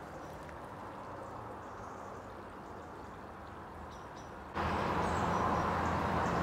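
Steady rushing of water from a small stream and waterfall. It jumps suddenly louder about four and a half seconds in and then holds steady.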